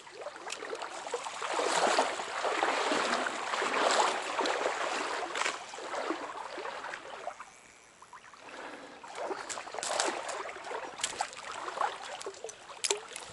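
Stream water sloshing and splashing, with a series of short, sharp splashes. The sound swells for several seconds, dies down briefly about eight seconds in, then rises again.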